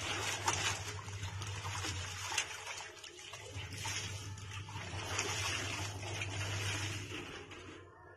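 Clothes being hand-washed in a stainless steel basin of soapy water: a wet cloth is dunked, lifted and squeezed, so the water splashes and sloshes and runs back into the basin. There is a brief lull about three seconds in. A steady low hum runs underneath.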